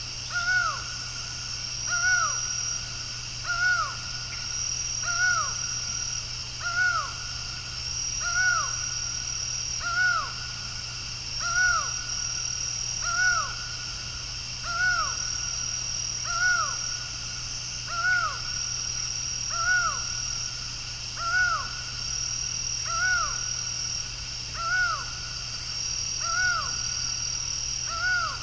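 Laughing falcon (acauã) calling: a long, evenly spaced series of hollow single notes, one about every second and a half, each rising briefly and then dropping in pitch. A steady high-pitched drone runs behind it, swelling in longer stretches.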